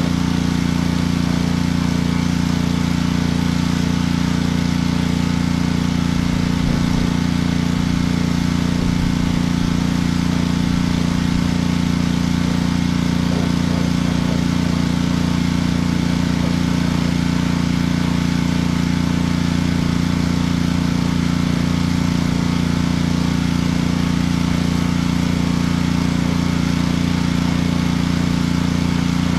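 Pressure washer running steadily: an even motor hum under the hiss of the water spray.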